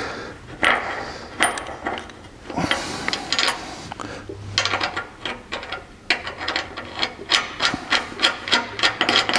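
Hand tools clicking and scraping against bolts and steel on a truck frame rail, a series of sharp metallic clicks, about three a second in the last few seconds.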